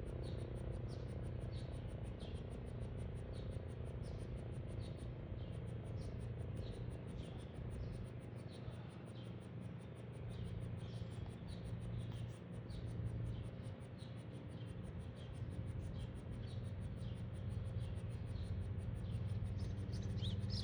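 Insects chirping in a steady, very regular high-pitched pulse, about three times a second, with short falling chirps mixed in and a low steady rumble underneath.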